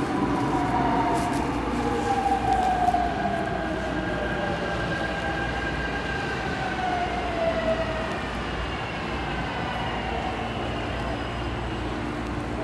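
Seoul Subway Line 5 electric train pulling in and braking to a stop alongside the platform, heard through the platform screen doors. Its motor whine falls in pitch over about eight seconds, then settles to a steady hum.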